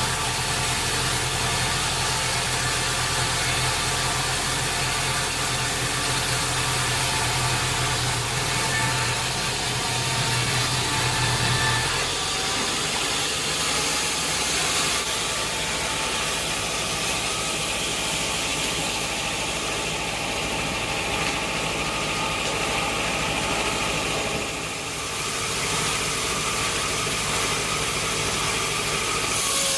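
Sawmill machinery running: a steady engine-like drone under a constant hiss, its low hum dropping away about twelve seconds in.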